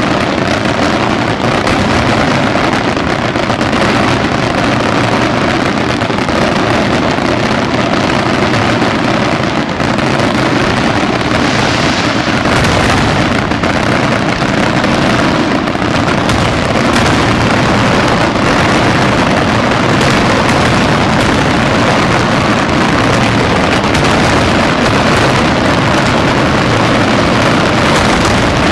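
Daytime aerial fireworks display: a loud, dense barrage of shell bursts and bangs, so close together that they run into one continuous din.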